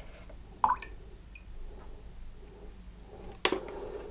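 A teaspoon of blended hemp paste and seeds tipped into a plastic jug of water, with a small wet plop. Two short sharp knocks stand out, one just under a second in and one near the end.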